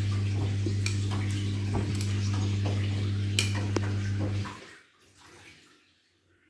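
Electrolux washing machine's drain pump running with a steady hum, water splashing and clicking through it, then cutting off about four and a half seconds in: the machine is pumping out its water before the rinse.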